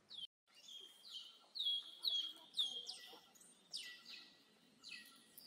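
Baby monkey crying: a run of high-pitched cries, each sliding down in pitch and then held briefly, about two a second, as it fusses at being weaned from milk.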